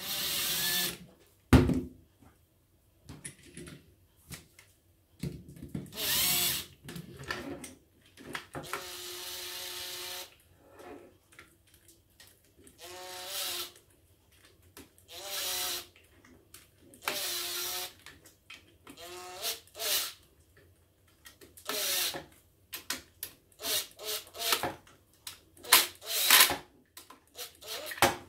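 Cordless impact driver driving the screws back into an air stapler's top cap, run in about a dozen short bursts with pauses between them. Some bursts carry a steady or rising motor whine, others are harsher full-range bursts. A sharp knock comes about a second and a half in.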